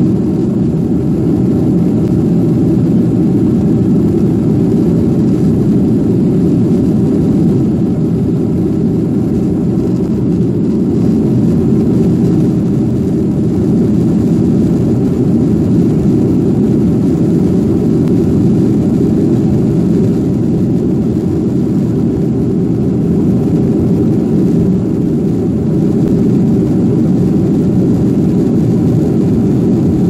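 Steady, loud cabin noise inside a Boeing 737 in flight: the low drone of the jet engines and the rush of air along the fuselage, unchanging throughout.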